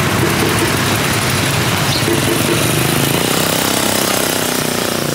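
A motor vehicle's engine running close by over the steady background noise of a roadside market; its engine tone stands out more clearly in the second half.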